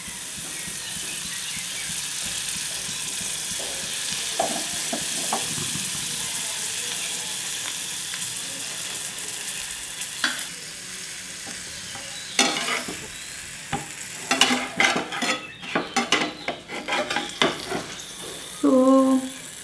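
Butter sizzling steadily under slices of bread toasting in a hot non-stick frying pan. From about halfway, a metal spatula scrapes and clicks against the pan, more and more often, as a slice is lifted to check its underside.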